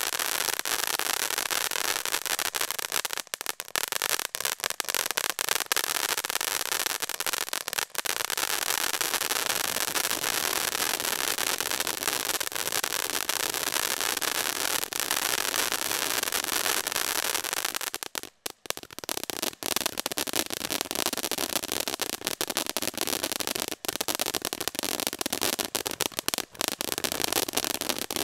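Shogun 'Tailgate Party' 500-gram firework fountain spraying sparks: a steady hiss dotted with many crackles. It breaks off briefly about two-thirds of the way through, then starts up again.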